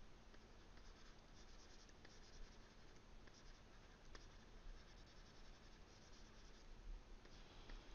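Faint scratching of a stylus drawing short strokes on a graphics tablet.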